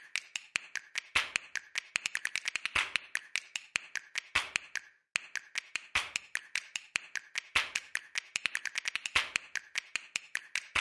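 A fast, uneven run of sharp clicks, several a second, with a short break about five seconds in.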